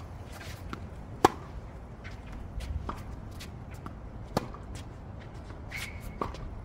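Tennis rally on a hard court: a tennis ball struck by rackets, giving sharp pops. The loudest comes about a second in and another strong one a little past four seconds, with fainter hits and bounces between them.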